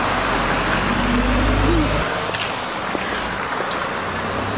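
Street traffic noise from passing vehicles, with a low rumble for the first two seconds that then eases off.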